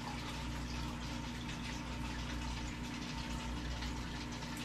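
Steady room tone: an even hiss with a low electrical hum underneath, no distinct events.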